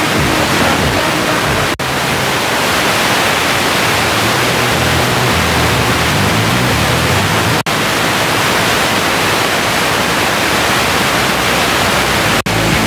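Smartphone FM radio tuned between stations, giving a steady static hiss; the hiss cuts out for an instant three times as the receiver steps up the dial 0.1 MHz at a time.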